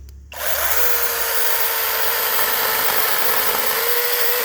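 Battery-powered 6-inch handheld mini chainsaw starting about a third of a second in and running steadily as it cuts through a fallen branch, with a constant whine.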